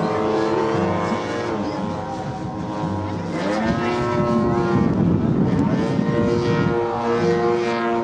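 Engine of a giant-scale radio-controlled Corsair model plane running in flight overhead. The drone eases off a little about two seconds in, then swells louder through the middle with its pitch bending as the plane passes.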